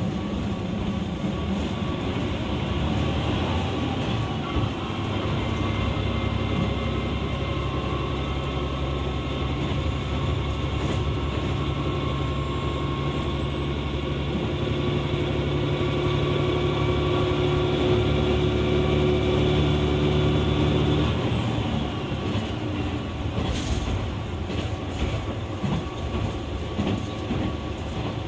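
KiHa 120 diesel railcar running on the line, heard on board: a steady engine drone under power, with a whine above it. About 21 seconds in the engine note drops away as power is shut off, and the railcar runs on with wheel and rail noise and a few knocks.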